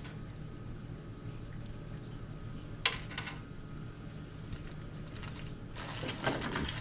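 Hands handling plastic saw parts and hose: one sharp click about three seconds in, then a run of rustling and small clicks near the end, over a low steady hum.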